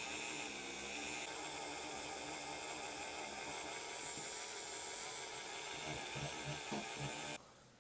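Handheld rotary tool running at a low speed setting, its small polishing wheel buffing a zinc diecast toy truck part: a steady whirring hum that stops suddenly near the end.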